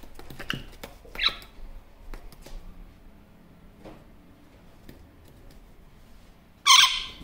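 Male superb parrot (Barraband parakeet) vocalising to himself: two brief high chirps in the first second and a half and a few light clicks, then one loud, short, harsh call near the end.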